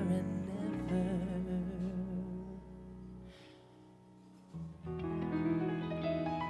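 Live jazz-pop band music, closing bars of a song: a held, wavering note over guitar and bass in the first couple of seconds, the bass dropping out briefly around the middle, then the band coming back in on a sustained chord.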